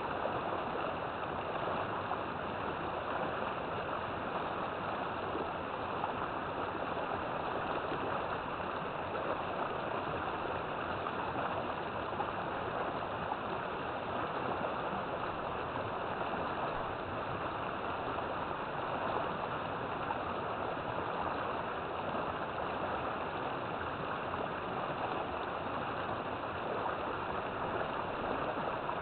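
River water flowing and rushing steadily, an even, unbroken gushing noise.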